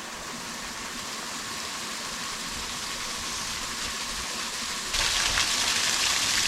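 Small waterfall splashing, a steady rush of falling water that jumps louder about five seconds in.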